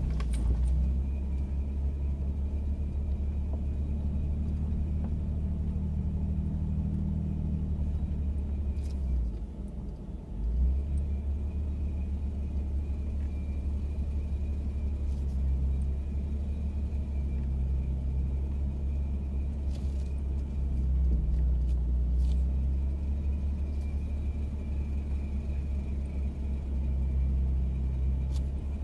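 Second-generation Ford Raptor's twin-turbo V6 and drivetrain rumbling steadily while crawling up a rocky trail, heard from inside the cab. The drone eases off briefly about nine seconds in, then picks up again a second later.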